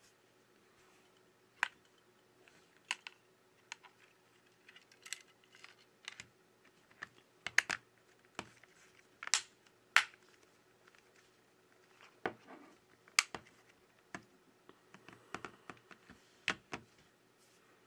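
Irregular sharp clicks and taps from fingers handling and pressing a Xiaomi Redmi 8 smartphone on a tabletop. About twenty of them, in uneven clusters, loudest around the middle.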